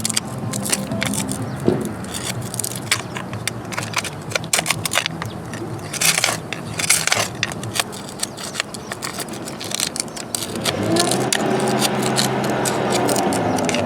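Loose rock and debris being scraped and knocked about while it is cleared out of a gap in a stone wall: many sharp, irregular clicks, clinks and scrapes. Under it runs a steady low hum that swells about ten seconds in.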